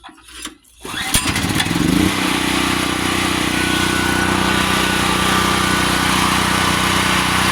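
Generac GP6500 portable generator's single-cylinder engine starting. It catches about a second in, rises in speed and settles into a steady, loud run within another second.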